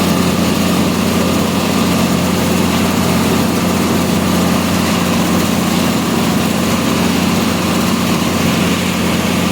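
Combine harvester running steadily while harvesting soybeans: a constant, even engine and machinery drone.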